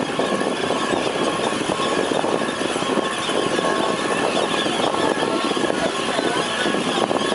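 Motorboat engine running steadily, with wind and water rushing past.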